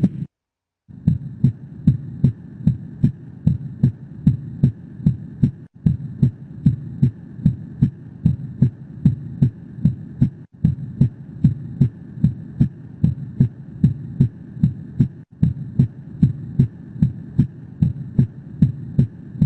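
Heart sounds recorded through a stethoscope: a regular heartbeat over a steady hiss. It starts after about a second of silence, and the short recording loops with brief breaks about every five seconds.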